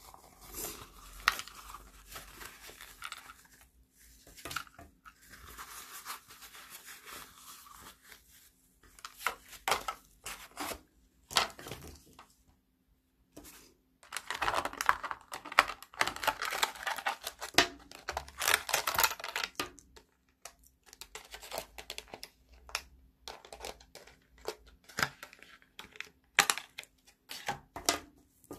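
Packaging of a new microphone being opened by hand: plastic and paper crinkling and tearing, with clicks and taps of handling. It comes in fits and starts with short pauses and is busiest a little past the middle.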